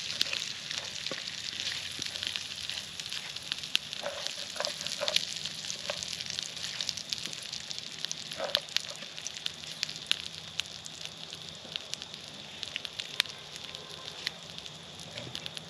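Bacon and egg frying in a skillet over a campfire: a steady high sizzle with frequent small crackling pops throughout.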